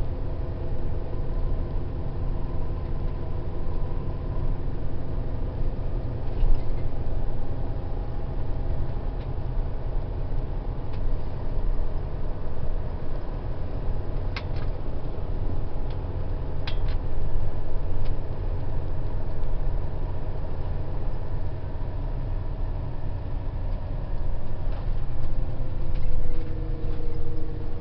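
Airport coach under way, heard from inside the passenger cabin: a steady low rumble from the engine and running gear, with several whining tones that drift slowly in pitch. A couple of sharp rattles come around the middle.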